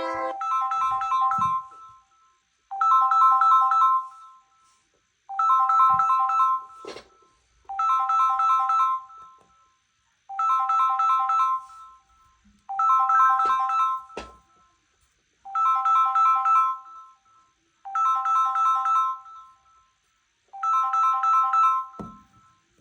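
Smartphone ringtone: a short warbling chime of a few pitched tones, about two seconds long, repeating about every two and a half seconds, with a couple of faint clicks in between.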